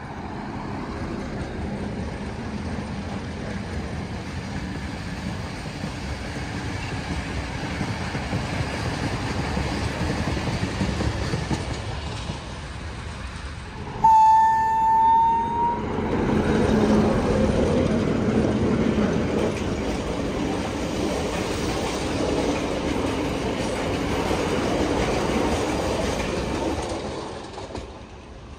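Train running past with rail rumble and clatter. About halfway through, a locomotive horn gives one blast of just under two seconds, a single tone rising slightly in pitch. After it the train noise is louder, then fades near the end.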